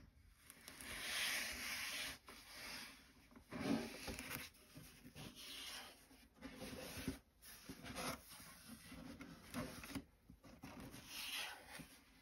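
Gloved hands rubbing and sliding over a cardboard shoebox as it is turned and handled, in swells of swishing, with a couple of light knocks from the box.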